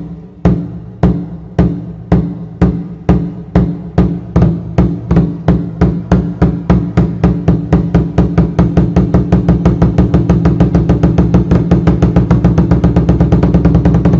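A large drum beaten alone, deep and ringing, starting at about two beats a second and speeding up steadily into a fast roll, in the manner of a festival drum urging on a dragon boat crew.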